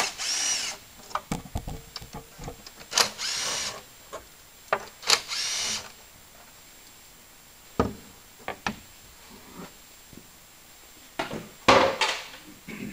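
Cordless power driver spinning out the engine cover's bolts in four short bursts of motor whine, with light knocks and clatter between them as bolts and cover are handled.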